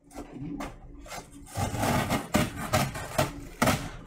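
Scissors blade slicing through packing tape along the seam of a cardboard box, scraping against the cardboard; faint clicks at first, then loud, irregular rasping strokes from about a second and a half in.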